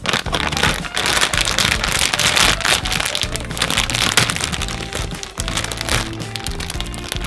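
Plastic candy bag being crinkled and torn open by hand: a loud, dense crackling of thin plastic film that eases off near the end, with background music underneath.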